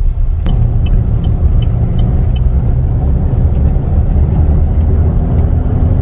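Car cabin noise while driving on a dirt lane: a steady low rumble of engine and tyres, with a single sharp knock about half a second in.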